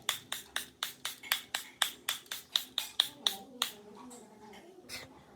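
Pump-spray bottle of makeup setting spray being sprayed in quick repeated puffs, about five a second for nearly four seconds, then one last puff near the end.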